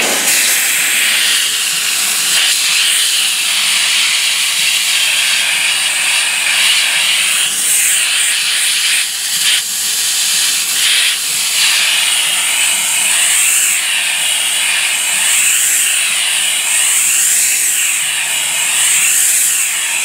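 McCulloch handheld steam cleaner, its nozzle tip removed, letting out a steady, loud hiss of pure steam pressed flat against a degreaser-soaked fabric seat belt, the steam blowing straight through the webbing to lift grease out.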